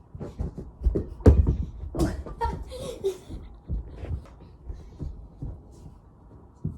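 Irregular thumps and knocks of a ball being kicked and handled, the loudest about one to two seconds in, with a brief laugh-like vocal sound a little later.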